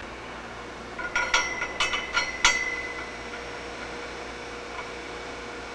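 Steel turbocharger parts and tools clinking together during disassembly: a quick run of light metallic clinks with a short ring, between about one and two and a half seconds in.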